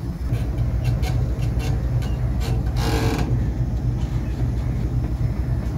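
Diesel locomotive engine idling with a steady low hum. A few clicks come early, and a short burst of hiss about three seconds in.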